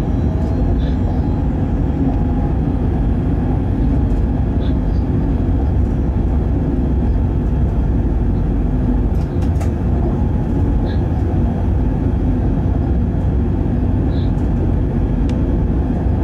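Steady rumble of a freight train running at speed, heard from inside the locomotive cab: wheels on the rails and the locomotive's running noise, with a few faint clicks.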